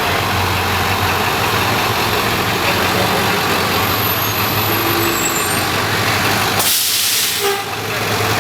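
A bus engine idling with a steady low hum. About seven seconds in, the air brakes give a loud hiss lasting about a second.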